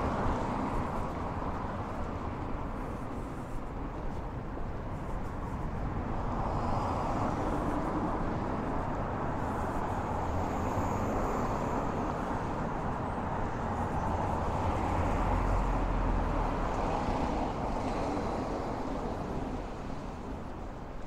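City street traffic: cars passing on the road, a steady hum that swells and fades, loudest in the middle, with a low rumble as a vehicle goes by near the end.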